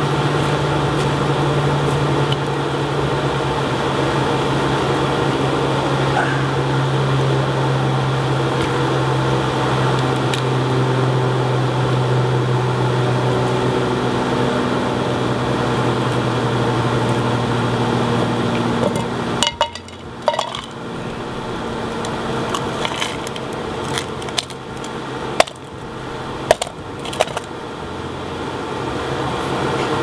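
Foundry air blower running with a steady hum, which drops away about two-thirds of the way through. Sharp metallic clinks and knocks follow as the clay-graphite crucible is tipped and tapped over a frying pan, knocking out brass that has turned to a crumbly powder instead of melting.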